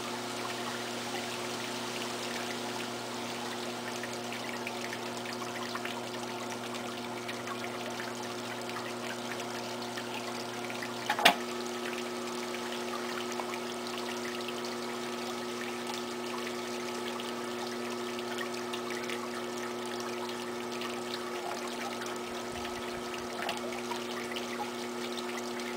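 Potter's wheel motor running with a steady hum over a faint, even hiss; a single sharp click about eleven seconds in.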